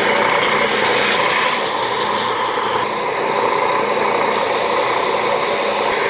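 Belt sander running and sanding a piece of black walnut: a steady motor hum under the hiss of the abrasive belt on the wood. The hiss changes about halfway through and again later as the piece is pressed and moved against the belt.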